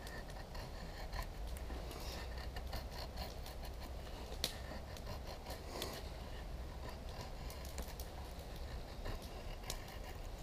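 A convex-ground carbon-steel knife blade shaving thin curls down a dry wooden stick: faint scraping strokes of feather-sticking, with one sharp click about four and a half seconds in.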